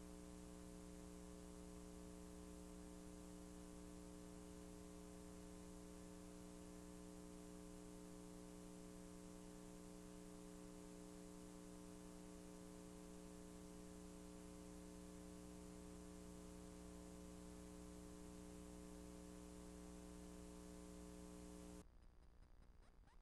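Near silence: a faint, steady electrical hum with hiss, which cuts off suddenly near the end.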